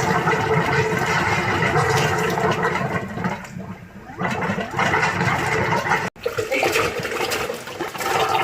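Water gushing and rushing as household water pipes are flushed out, with steady tones running through it. It eases off about three and a half seconds in, comes back, and cuts off sharply about six seconds in.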